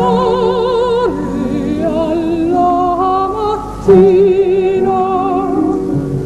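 Operatic soprano singing a sustained, slow phrase with wide vibrato; her voice comes in louder about four seconds in.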